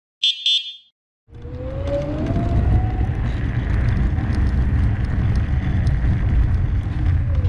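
Electric scooter riding along a street: wind rumble on the action camera's microphone and road noise, with the scooter's motor whine rising in pitch as it picks up speed and falling again near the end. It is preceded about a quarter second in by two short high beeps.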